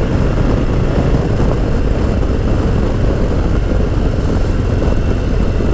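Harley-Davidson Low Rider ST's Milwaukee-Eight 117 V-twin running at a steady cruising speed, mixed with a steady rush of wind and road noise.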